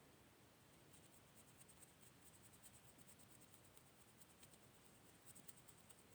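Near silence: faint room tone with light, rapid ticking.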